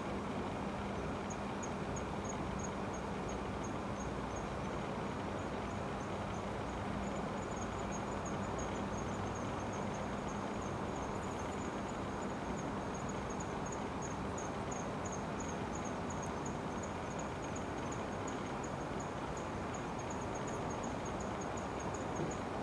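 Steady outdoor hiss with an insect chirping in a high, even rhythm, about two or three chirps a second, over a faint low hum.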